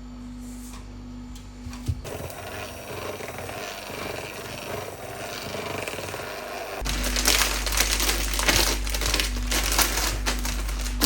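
Electric hand mixer running in a bowl, beating cream cheese and mascarpone into whipped cream, with the beaters rattling and scraping. The sound changes abruptly about two seconds in and gets louder and busier from about seven seconds in.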